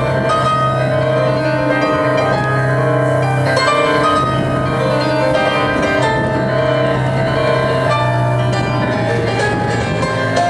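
Instrumental music on a keyboard instrument: a melody of pitched notes over long-held low bass notes that change every few seconds.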